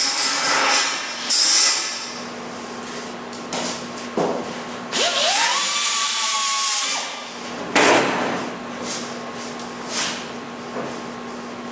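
Handheld power grinder working the edge of a sheet-steel body panel lip in short passes: a brief grind, then a whine that rises and holds for about two seconds under the grinding noise, then another short grind. A steady low hum runs underneath in the later part.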